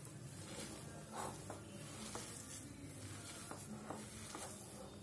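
A bare hand mixing a crumbly mixture of grated carrot, torn bread pieces, chopped onion and spices in a bowl: faint, irregular rustling strokes.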